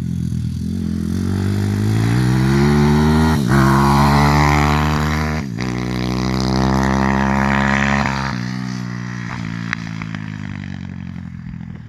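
Zongshen 160cc single-cylinder pit bike engine revving hard under acceleration, its pitch climbing with two brief dips at gear changes, about three and a half and five and a half seconds in. Near the end it eases off to a lower, quieter pitch.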